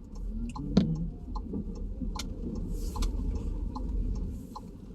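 Car turn-signal indicator ticking evenly about every 0.4 s, heard inside the cabin over the low rumble of the engine and tyres. The rumble swells while the car drives on, and there is a single louder knock about a second in.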